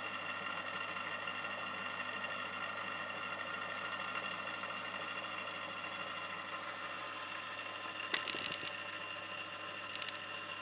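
Cirse Nilus 8mm cine projector running: its motor and film mechanism whir steadily. A few light clicks come near the end.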